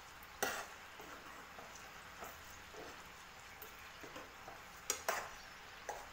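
Melted sugar syrup with raw mango pieces bubbling at a boil in a pan, while a metal spoon stirs it and now and then scrapes against the pan. The loudest scrapes come about half a second in and twice around the five-second mark.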